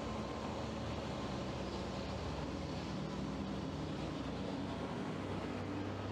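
A steady low rumble with faint held hum tones, even throughout.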